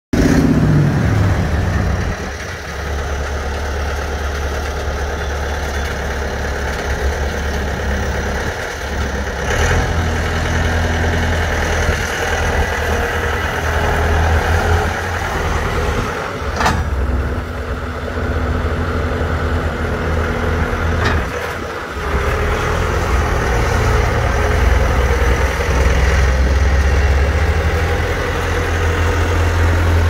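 2004 Bobcat S300 skid steer's turbo diesel engine running steadily as the machine drives and works its lift arms, the engine note swelling and dipping under load. Three brief sharp knocks stand out along the way.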